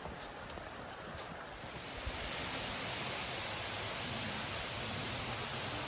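Steady rushing of a waterfall. It comes in louder and brighter about two seconds in, over a quieter wind noise before.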